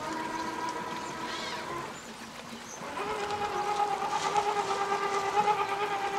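Electric whine of an RC crawler's brushless motor (Hobbywing AXE R2 2800 kV) and gear drivetrain under throttle, a steady tone that drops away about two seconds in and comes back louder about three seconds in, with a few faint knocks.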